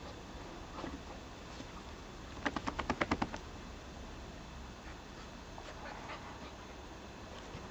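Dogs at play, a Doberman and a German shepherd puppy. About two and a half seconds in comes a rapid run of about ten short, sharp sounds lasting about a second, with a few faint short whimpers before and after.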